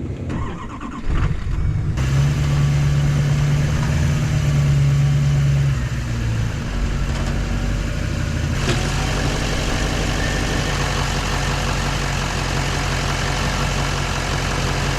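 Pickup truck engine cranking briefly and catching about a second in, on a below-freezing cold start. It runs at a raised idle for several seconds, then settles to a lower, steady idle. About nine seconds in, a steady rushing noise joins.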